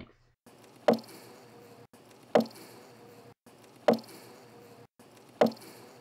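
A knock on a honeybee hive followed within a third of a second by the colony's hiss, very sharp, like a snare, played four times about a second and a half apart. Such short, sharp hisses are what the beekeeper takes to go with a colony that is not preparing to swarm.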